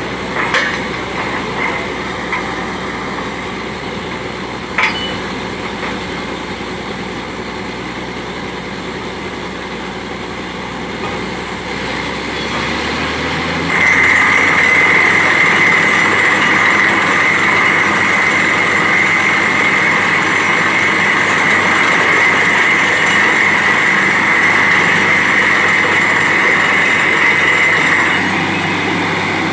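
Borewell drilling rig machinery running steadily, with a few sharp clicks early on. About halfway through it turns louder and harsher, then eases slightly near the end.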